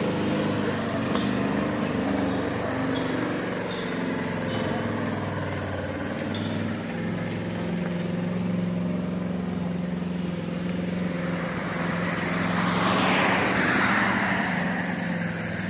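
Motor-driven carrot washing machine running steadily, with an even engine drone and a constant high hiss. About thirteen seconds in, a louder rushing sound swells briefly and fades.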